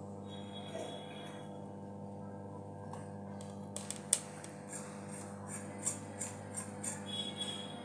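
Small kitchen knife clicking and snicking as pieces are cut by hand from a peeled white vegetable, a scattered run of sharp ticks starting about halfway through. Under it runs a steady low electrical hum.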